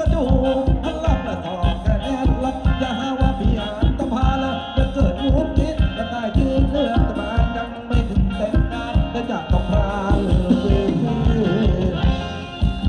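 Live Thai ramwong band music: drum kit keeping a steady, fast beat under electric guitars and keyboard, with a voice singing the melody.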